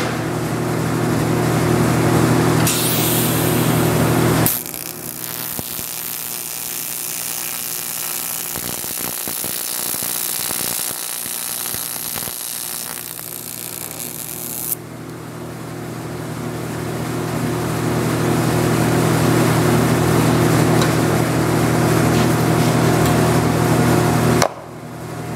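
Welding arc on an aluminium forging: a steady, dense hiss and crackle starts about three seconds in and lasts roughly twelve seconds. Before and after it runs a steady electrical hum made of several even tones.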